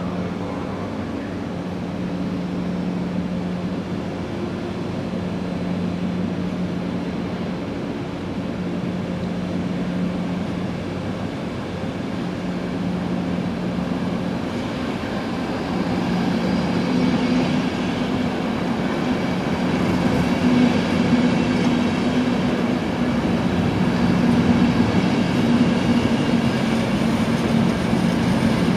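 ÖBB regional train of double-deck CityShuttle coaches and bicycle-transport wagons rolling past: a steady rumble of wheels on rail with a steady hum. About halfway it grows louder and a second, higher hum joins.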